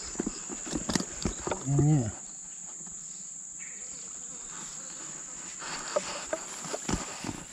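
Steady high-pitched drone of insects, with scattered light clicks from handling the fishing line and float. A short vocal sound comes just before two seconds in.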